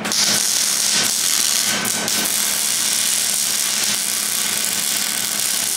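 Electric arc welding on steel tubing: a steady crackling, sizzling hiss that starts abruptly as the arc is struck and holds for several seconds.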